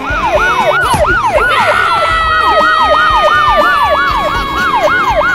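Siren wailing in quick rising-and-falling sweeps, about three a second. A long, slowly falling tone joins it about a second and a half in.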